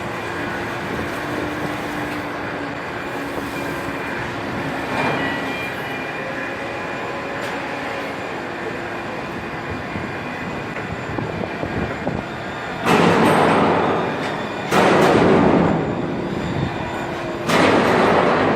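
Heavy container-port machinery running with a steady mechanical hum and faint tones. In the last third come three loud rushing noises, each a second or two long.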